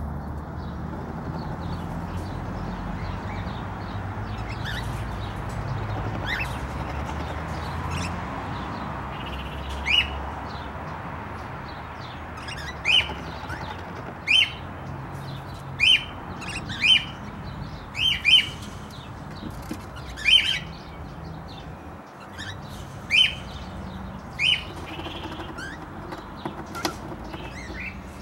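Cockatiels chirping: about ten short, sharp chirps from roughly ten seconds in, with fainter high chirping throughout. Under them, a steady low rumble fades out about a third of the way through.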